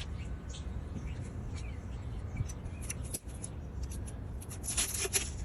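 Light rustling and clicking of hands handling things, strongest about five seconds in, over a steady low rumble.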